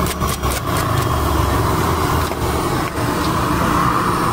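A fork whisking eggs in a steel bowl, rapid metallic clicks at about five strokes a second that stop within the first second. A steady low rumbling background noise follows.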